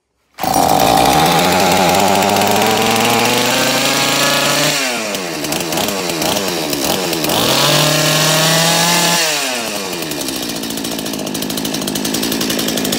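Husqvarna 246 two-stroke chainsaw engine catching about half a second in and running on a freshly cleaned carburetor. It is revved up, let down around five seconds in, revved again, then drops back to a lower idle for the last few seconds.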